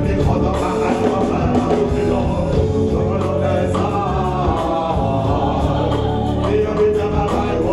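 Live reggae band playing, with drums, electric guitar and keyboard under a man singing into a microphone.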